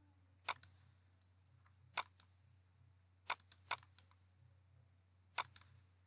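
Computer mouse buttons clicking: about nine short, sharp clicks, some single and some in quick pairs and threes.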